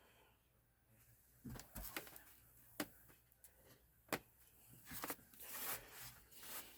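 Faint, scattered clicks and light knocks of computer parts and cable connectors being handled, with soft rustling near the end.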